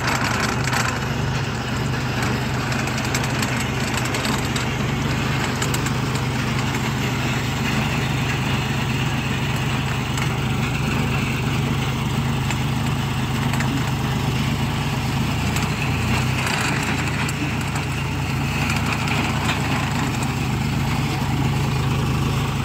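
Tractor diesel engine running steadily at constant speed, driving a hydraulic earth auger that is boring a post hole into the soil.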